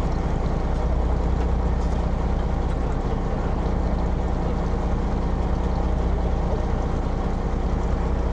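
Fishing boat's engine running steadily with an even low hum.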